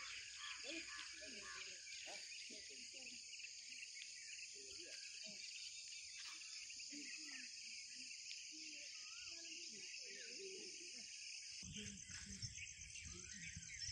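Faint, steady, high-pitched chorus of insects chirring. About twelve seconds in, a low rumble comes in and a fast pulsing insect trill rises above the chorus.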